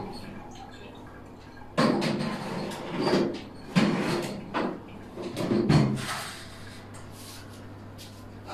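Oven door opening and a baking tray being pushed in with a series of clatters and knocks, then the door shutting. A steady low hum sets in about six seconds in.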